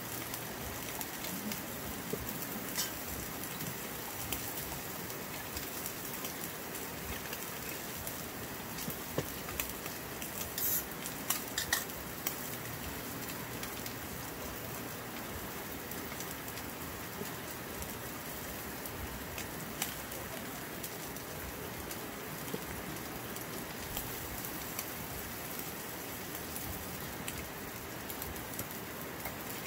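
Beef steak, mushrooms and onion slices sizzling steadily on a hot griddle pan over a portable butane stove. A few light clicks come about ten to twelve seconds in.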